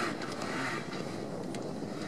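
Off-road 4x4 engine running as the vehicle works a sprint course, with a few short sharp clicks.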